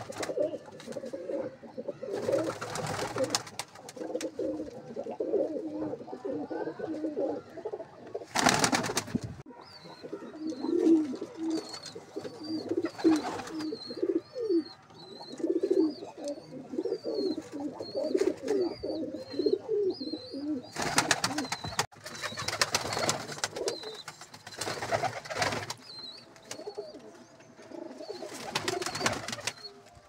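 Domestic pigeons cooing over and over, with several short noisy bursts scattered through and a thin high chirping in the middle stretch.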